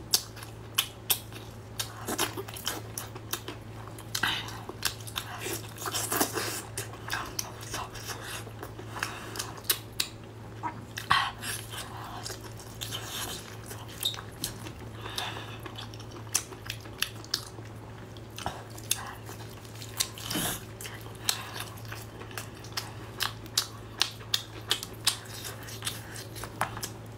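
Close-up eating sounds of a person biting and chewing octopus in sauce: irregular short wet bites and mouth smacks, several a second, over a steady low hum.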